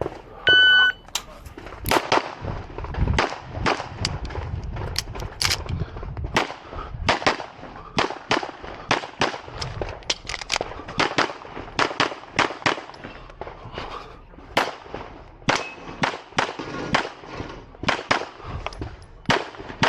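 An electronic shot-timer start beep, then a pistol fired in quick strings of sharp shots, with short gaps between the strings, through a practical-shooting stage.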